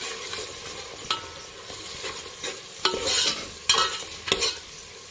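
Green coriander and ginger-garlic paste frying with sliced onion in oil in a metal pot, sizzling steadily. A steel spoon stirs it and scrapes against the pot several times.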